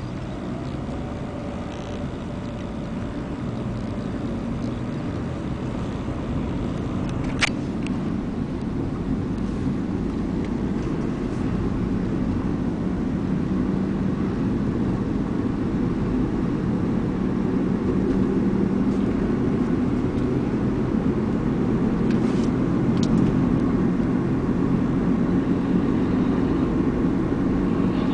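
Road and engine noise of a moving car heard from inside the cabin, a steady rumble growing gradually louder. A single sharp click sounds about seven seconds in.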